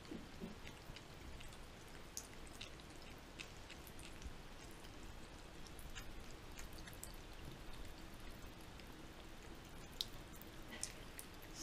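Faint, thin stream of water from a bathroom faucet trickling into the sink, with small irregular drips and splashes as a cat laps at the stream with its tongue.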